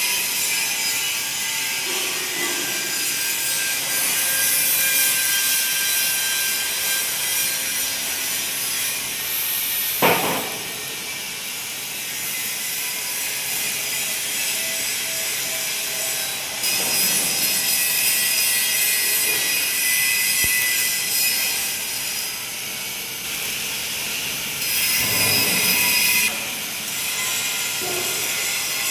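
MIG welding arc on a pipe, crackling and hissing steadily. It grows louder and softer in stretches as the weld goes on, with one sharp knock about ten seconds in.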